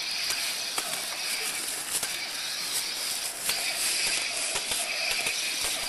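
A steady hiss, with scattered light clacks and rustles as plastic toy lightsabers clash and feet shift in dry fallen leaves.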